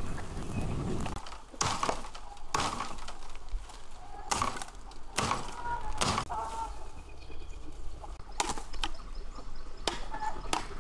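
A series of about eight sharp cracks, roughly one a second and irregularly spaced, with faint short bird chirps between them in the middle.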